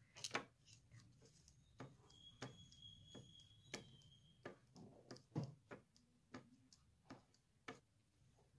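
Faint, irregular clicks and taps of a glue stick and fingers against a sticky note on a hard clipboard as the paper is glued and pressed down.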